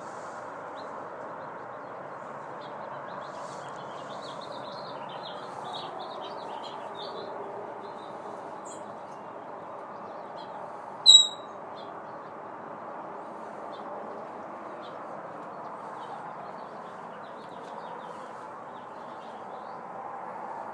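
A pet parrot making faint chirps, then one loud, short, high whistle about eleven seconds in, over a steady background rumble.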